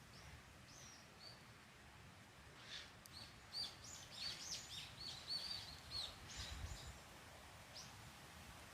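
Small bird chirping: a quick run of short, high chirps, sparse at first, thickest in the middle, with one last chirp near the end, over a faint steady hiss.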